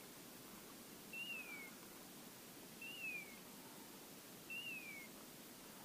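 Pointing-dog beeper collar sounding its point signal: three faint, identical whistle-like tones, each rising briefly and then falling, repeating evenly about every 1.7 seconds. The steady repeat means the English setter is standing still on point.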